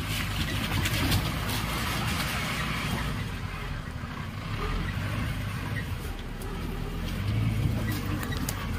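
Maruti Gypsy's engine running at low revs as it crawls over a rocky streambed, with scattered clicks and knocks of the tyres on stones.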